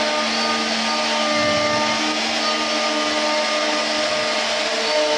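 3-axis CNC router carving wood: the spindle runs steadily with a continuous cutting noise, and several steady tones come and go every second or so as the machine moves.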